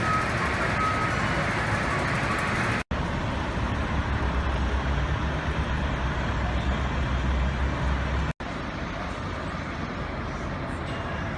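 Road traffic noise: a steady wash of motor vehicles with a low engine rumble, in three stretches separated by two abrupt cuts about three seconds and eight and a half seconds in.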